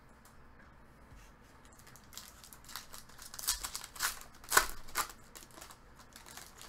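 Trading card pack wrapper crinkling and being torn open by hand: a run of short, sharp rips and rustles starting about two seconds in, the loudest near five seconds.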